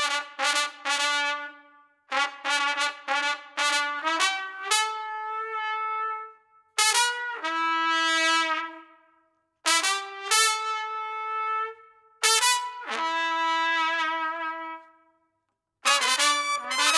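Plastic trumpet played in short phrases: quick tongued notes, each phrase ending on a held note, with brief pauses between phrases. The tone is loud but lacks clarity, the air seeming to lag and not flow freely through the plastic horn.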